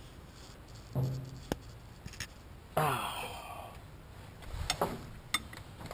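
A man grunting and sighing with effort, one short grunt about a second in and a longer falling sigh a little before the middle, with a few light clicks and knocks of tools on metal.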